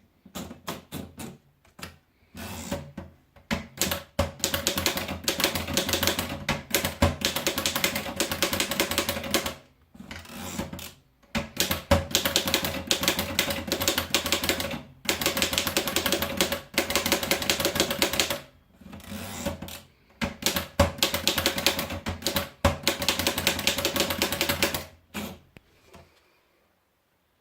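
Erika Model 5 portable typewriter being typed on: rapid runs of key strikes, a few seconds each, broken by short pauses.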